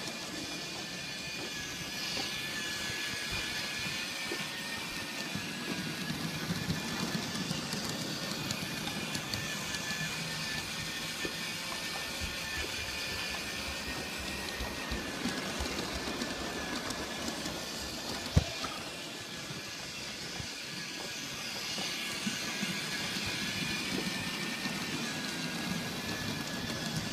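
G scale model train running on its track: a steady, slightly wavering motor and gear whine over the rumble and faint ticking of wheels on the rails, with one sharp click about 18 seconds in.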